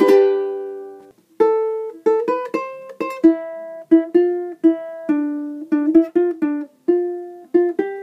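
Concert ukulele: a strummed chord fades out, then after a short pause about a second and a half in, a melody is picked out note by note.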